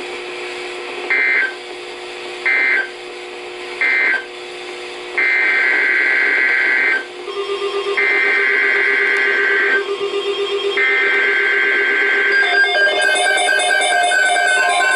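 Emergency Alert System SAME data bursts: three short screechy bursts of the end-of-message code, then three longer header bursts opening the next alert. Near the end an electronic alert tone of several stepped pitches begins.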